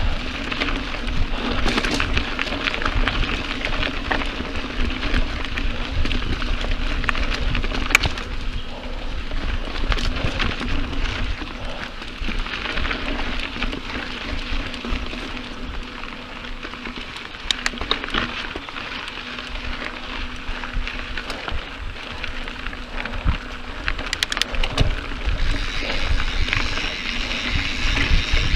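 Mountain bike rolling over a dirt trail: a steady crackle of tyres on loose dirt and gravel, peppered with small clicks and rattles, over a low rumble.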